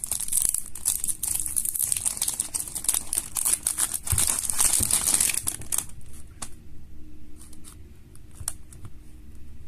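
Packaging crinkling and tearing as a cube is unwrapped, dense for about the first six seconds, then giving way to scattered light clicks and taps of handling.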